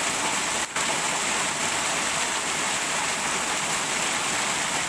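Steady rushing of a shallow rocky stream cascading over stones, with a brief dip in level just under a second in.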